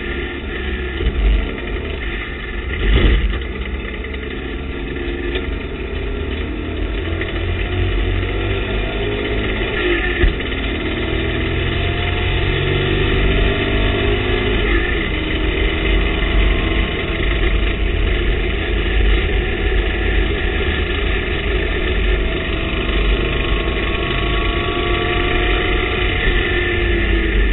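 TVR Tuscan race car's engine heard from inside the cockpit, running under hard acceleration with its pitch rising again and again as it pulls through the gears. Two brief thumps stand out in the first few seconds.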